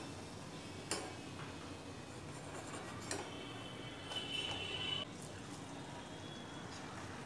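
Puris deep-frying in hot oil in a kadhai, sizzling softly, with sharp metal clinks from a slotted spoon against the pan about one and three seconds in. The sizzle brightens for about a second near the middle as a fried puri is lifted out and a fresh one slipped in.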